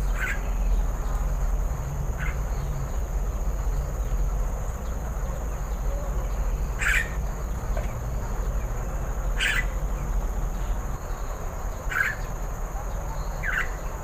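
Steady high-pitched insect drone with a short sharp chirp every two to three seconds, over a low rumble.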